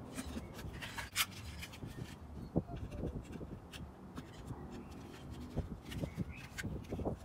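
Blade fuses being pressed by hand into a plastic fuse block: scattered sharp clicks and knocks with light rubbing of fingers on the block.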